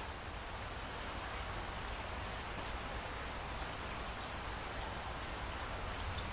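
Steady rain falling: an even hiss of drops.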